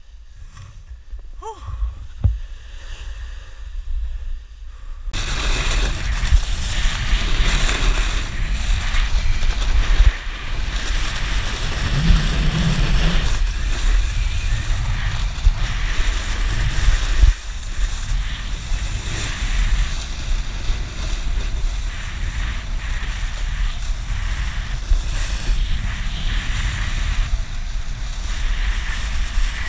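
Wind buffeting an action camera's microphone together with a snowboard hissing and scraping over packed snow as it carves downhill. Quieter for the first few seconds, then a loud, steady rush from about five seconds in.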